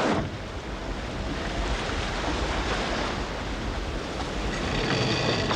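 Stormy sea: a steady rush of wind and breaking waves, with wind buffeting the microphone. A faint high whine with several tones comes in near the end.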